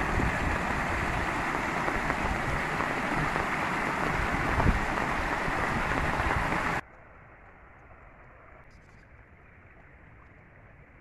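Muddy floodwater rushing down a dirt path in a steady, loud rush, with low buffeting. It cuts off abruptly about two-thirds through, leaving a much quieter, even flow of water over a flooded field with a few faint high chirps.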